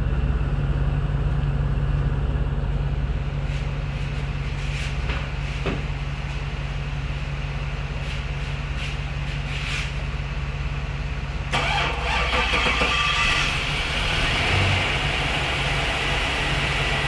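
LS1 5.7-litre V8 engine running steadily just after starting on a newly fitted fuel pump, with fuel pressure now reaching the engine. About two-thirds of the way through, a brighter hissing noise joins the engine sound.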